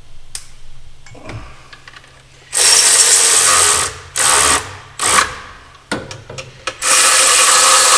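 Power tool running bolts in, in four loud bursts: one of about a second, two short ones, and a last, longer one near the end. Light clicks and knocks of handling come in between.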